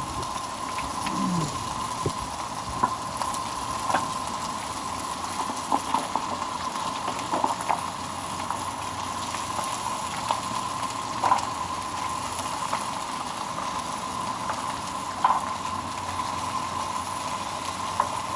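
Sausage and hash browns frying in hot oil in a pan: a steady sizzle with scattered pops and crackles.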